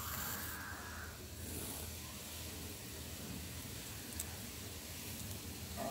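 Wool yarn pulled through coarse jute cloth with a needle during cross-stitch: a soft rasping rustle at the start and again about a second and a half in, with a small click about four seconds in.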